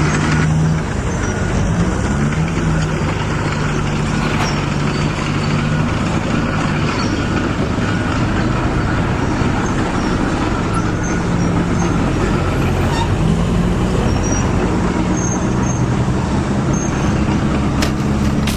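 Heavy diesel truck engine sound, an effect standing in for the RC dump truck's engine, running steadily. Its pitch steps up and down a few times.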